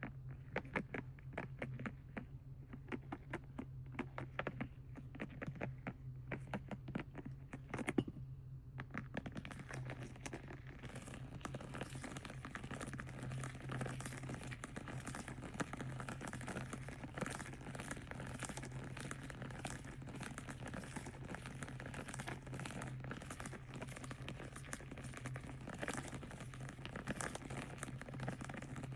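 Plastic and foil packaging crinkled and tapped by hand. At first it comes as separate light taps and crinkles; from about nine seconds in it becomes dense, continuous crinkling.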